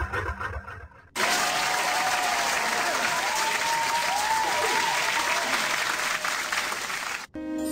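Audience applause and cheering with a few whistles, starting abruptly about a second in as the music fades out, and cutting off suddenly near the end.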